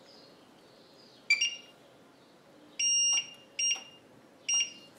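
Electronic touch-control beeps of a glass-top hob being switched on and its heat set: one short beep about a second in, a longer beep near three seconds, then two short beeps.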